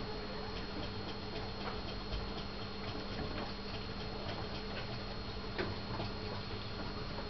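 Faint, irregular clicks and light scratches of a long-haired hamster's claws on a plastic transport box as it climbs over the lid and edge.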